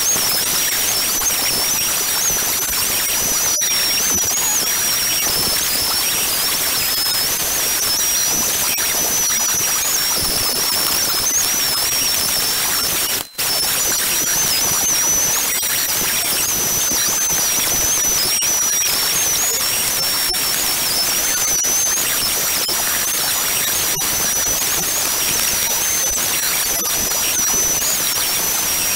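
Corded electric orbital sheet sander running steadily as it sands a wooden board: a steady hiss with a high, slightly wavering whine on top, broken off very briefly about halfway through.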